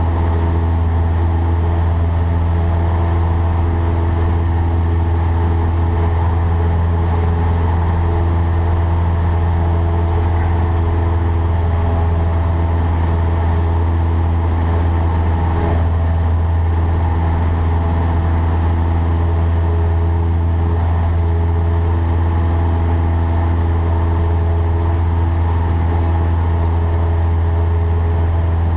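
Cessna 152's four-cylinder Lycoming O-235 engine and propeller running at a steady drone in the cockpit, a loud even low hum with steady overtones.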